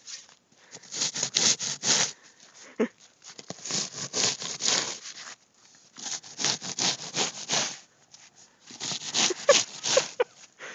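Snow shovel scraping along a snowy driveway in four bouts of quick strokes. A few short whines from a dog come in between, about three seconds in and near the end.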